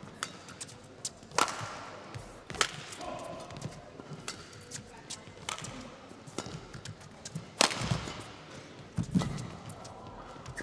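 Badminton rally: rackets striking the shuttlecock in a handful of sharp cracks a second or more apart, with fainter taps and shuffles of footwork on the court between.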